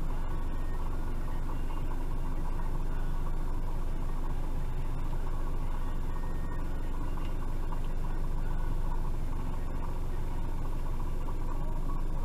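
Steady low hum of a stopped vehicle's engine idling, heard from inside the cabin.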